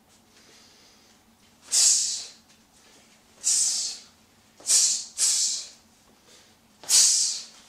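Sharp, forceful breaths pushed out with each technique of a Taekwon-Do block, snap kick and double punch sequence. There are five breaths about a second apart, and the third and fourth come as a quick pair with the two punches.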